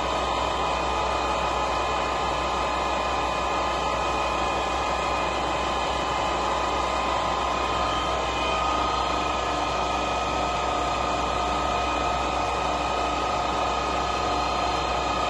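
Stanko 6A82III dual-spindle milling machine running, a steady whine and hum from its drive that holds one pitch throughout.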